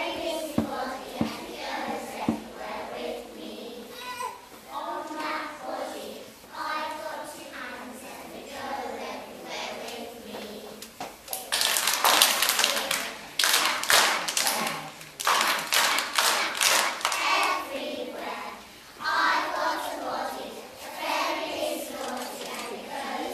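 A group of young children singing together, with a stretch of hand clapping about halfway through that lasts around five seconds, after which the singing carries on.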